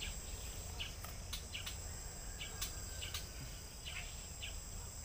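Steady high-pitched drone of insects, with faint scattered clicks.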